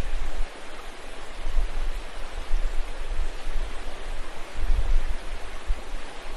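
Steady rushing noise like running water, with low rumbles coming and going.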